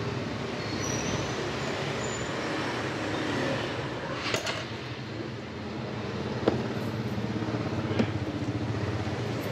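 Steady street traffic noise with engines running, and a few short light clicks about halfway through and near the end.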